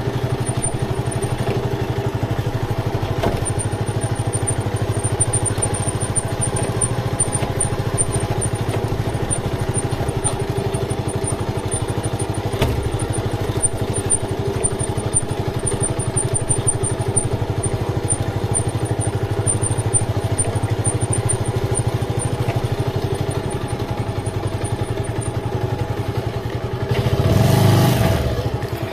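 Motorcycle engine running steadily while under way on a rough hill track. Near the end there is a louder rush of noise lasting about a second.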